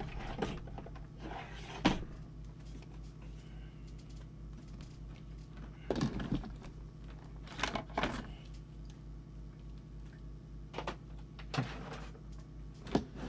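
A heavy benchtop instrument, a Soviet RF millivoltmeter, being moved into place on the workbench: a series of separate knocks and thumps, the sharpest about two seconds in, over a steady low hum.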